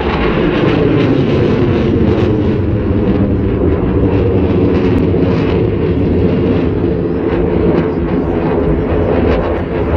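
Dassault Rafale fighter's twin Snecma M88 jet engines heard from the ground during its display: a loud, steady, deep jet noise that neither fades nor breaks.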